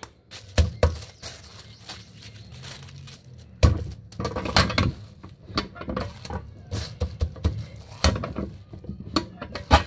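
Kitchen handling noise: an uneven run of knocks and clatters of utensils and cookware, with sharper knocks about three and a half seconds in, about eight seconds in and near the end.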